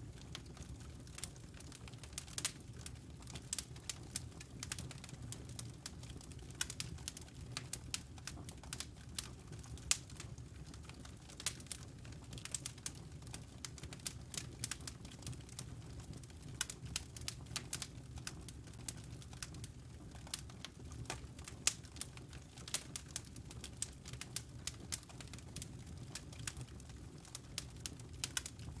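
Wood fire crackling in a fireplace: frequent irregular sharp pops and snaps, a few louder than the rest, over a steady low rumble.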